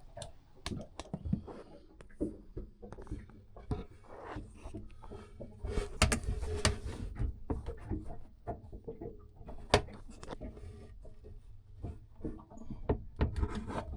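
Irregular knocks, clicks and scrapes of wooden pieces being handled and fitted by hand, with a few heavier thumps.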